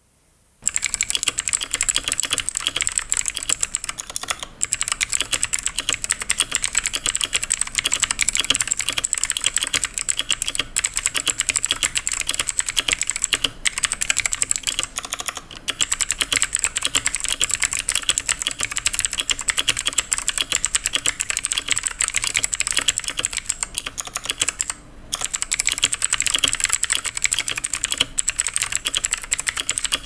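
Continuous fast typing on a TMKB T63 mechanical keyboard fitted with TMKB Blue clicky switches: a dense, obnoxiously loud clatter of clicks, not ringy. The typing pauses briefly a few times, longest near the end.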